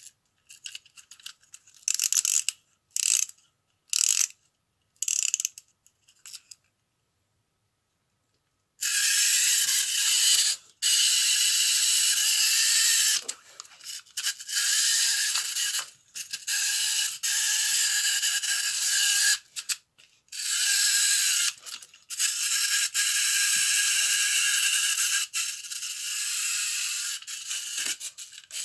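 Plastic clockwork wind-up toy chicken: its key is wound in a series of short ratcheting turns, then the spring motor runs with a continuous high-pitched whirr that breaks off briefly several times.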